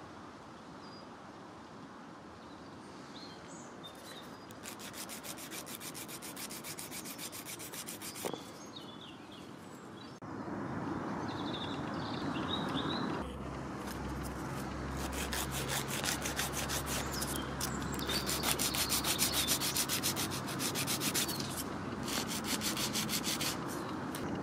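Hand nail file rasping across a dog's nail in quick, even back-and-forth strokes, in two spells: one short, then a longer one from about halfway through.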